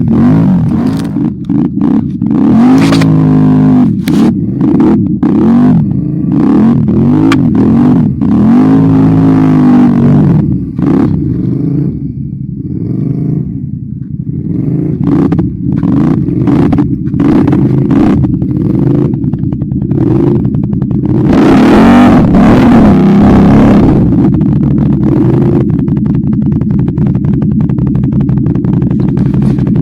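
ATV engine running loud and revving up and down again and again, with frequent knocks and clatter. It eases off briefly about halfway through, then revs hard again.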